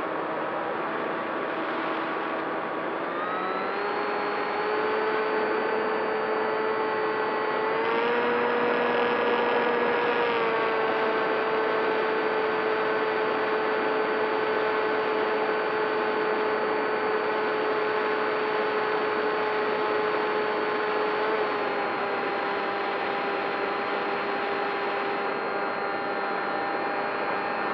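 Radio-controlled model airplane's motor and propeller running in flight with a steady whine. The pitch steps up and down a few times as the throttle changes.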